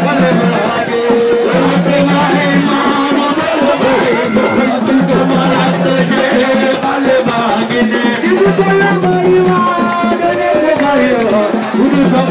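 Music with a fast, steady shaker rhythm, a sung melody over it and a repeating bass line.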